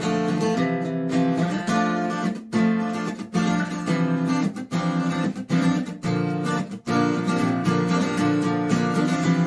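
Acoustic guitar strummed and picked in an instrumental passage, moving through chords with several brief stops between them.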